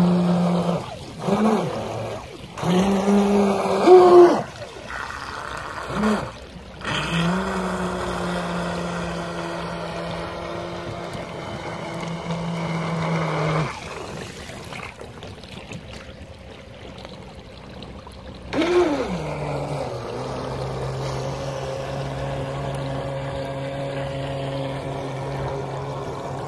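Radio-controlled waverunner's motor whining in short throttle bursts, then held steady; about halfway through it drops away, then revs once and settles to a steady lower pitch.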